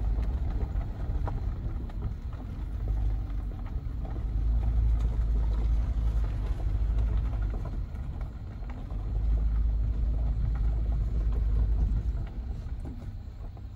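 Low rumble of a Toyota Highlander SUV driving slowly on a rough country road, heard from inside the cabin, swelling and easing and growing quieter near the end.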